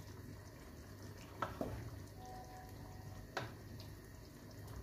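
Wooden spatula stirring a watery minced-meat and potato curry in a pot, with a couple of light knocks of the spatula against the pot, over a faint steady hum.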